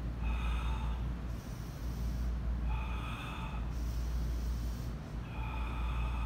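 A man's forceful breaths, three of them, each about a second long and about two and a half seconds apart. They are paced to single-arm kettlebell rows, inhaling as the weight lowers and exhaling as he pulls, with the abs braced.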